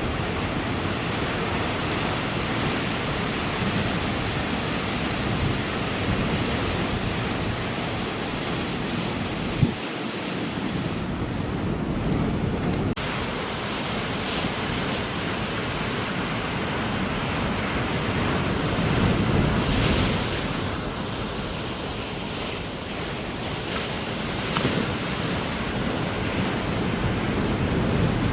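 Ocean surf breaking and washing, with wind buffeting the microphone. A single brief knock about ten seconds in.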